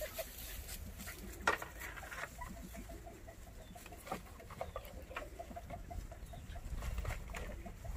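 A steady run of short, high peeping calls from small animals, several a second, with one sharp knock about one and a half seconds in.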